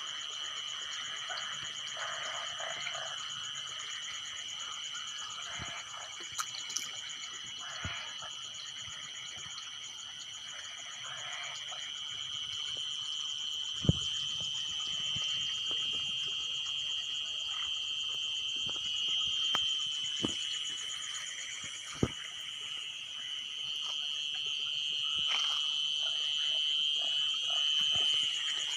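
Frogs croaking over a steady, high-pitched insect drone, with a few sharp clicks or knocks scattered through.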